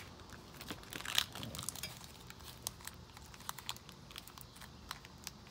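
Foil Pokémon booster pack being crinkled and torn open by hand: a string of irregular crackles, with a sharper crinkle about a second in.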